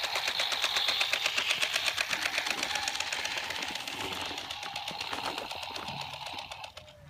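Electronic engine sound effect from a toy vehicle's small speaker: a rapid, even chugging that tapers off and stops near the end.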